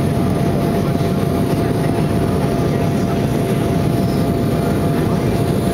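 Steady cabin noise of an Embraer E175 in its climb after takeoff, heard inside the cabin: the deep rush of its GE CF34 turbofans and the air over the fuselage, with a faint steady whine running through it.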